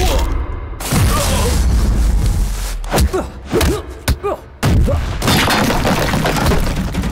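Action-film fight sound effects: heavy punch and body impacts over a dense, loud effects track, with a cluster of sharp hits a little past the middle.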